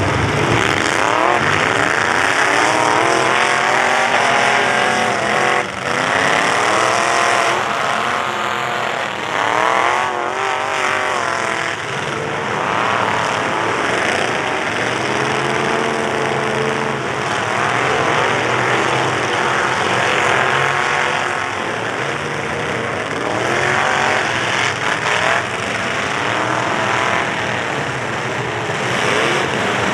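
Engines of many full-size pickup trucks revving up and down together, with a few brief crunching hits as the trucks collide.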